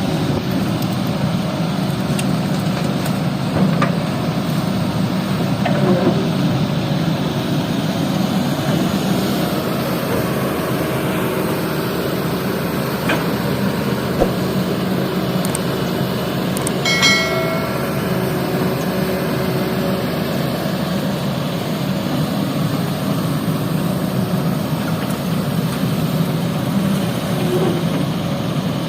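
Excavator's diesel engine running steadily as it works loading sand, with a few faint knocks and a brief high squeal about 17 seconds in.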